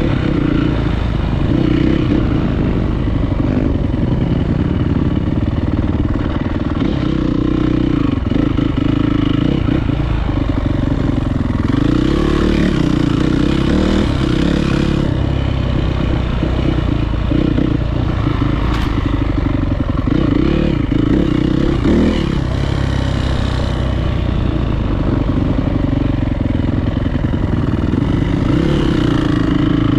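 Single-cylinder 450cc four-stroke dirt bike engine under riding load, its revs rising and falling over and over as the throttle is worked.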